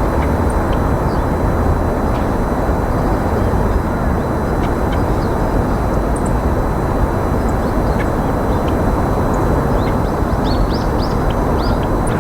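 Loud, steady low outdoor rumble, with faint short bird chirps scattered over it and a quick run of chirps near the end.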